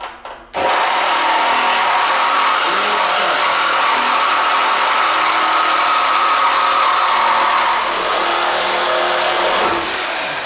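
A high-speed power cutting tool starts abruptly about half a second in and cuts into the steel frame rail of a 1982 Ford F-150, with a steady high whine over a harsh grinding noise. Near the end it is switched off and the whine falls as the tool spins down.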